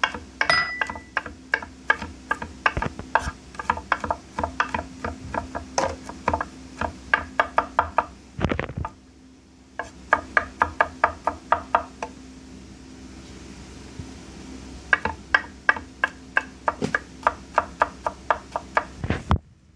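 Kitchen knife chopping on a cutting board: quick, even knocks about five a second, in three runs with short pauses between them, over a faint steady hum.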